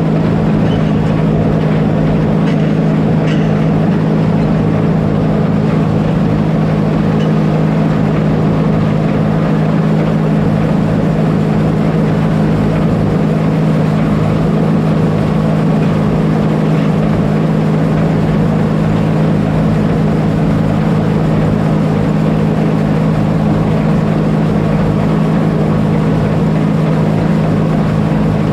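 Oliver 7300 combine running steadily under load while cutting wheat: a loud, even drone of engine and threshing machinery that never changes pitch.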